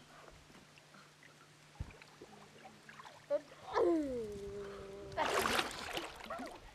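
A long animal call that drops in pitch and then holds steady, followed by about a second of splashing water at the waterhole.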